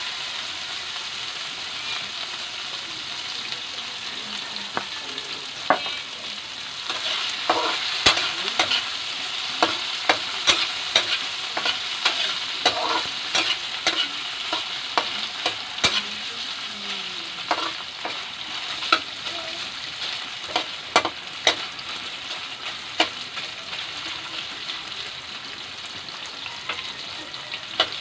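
Pork pieces sizzling steadily as they fry in a metal wok, with a metal spatula stirring them and clacking and scraping against the pan at irregular intervals, mostly from a few seconds in.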